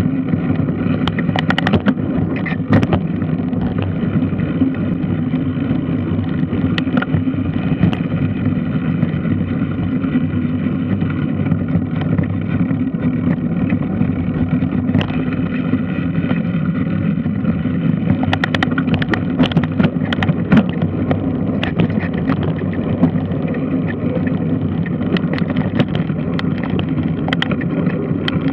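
Large washing machine running: a steady low mechanical drone with scattered sharp clicks and knocks, more of them near the start and through the last third.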